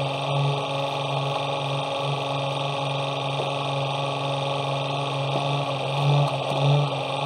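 Sport-fishing boat's engine running at low speed: a steady low drone that swells and fades in places, with a steady hiss of wind and water.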